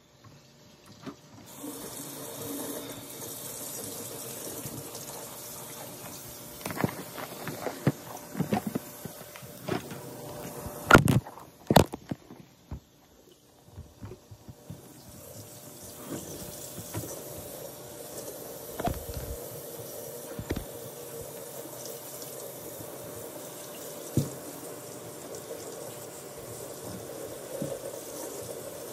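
Kitchen faucet running into a stainless steel sink, with a run of knocks and clatter in the first half, the two loudest sharp knocks about a second apart. The water drops away for a couple of seconds, then runs steadily again as hair is held under the spout.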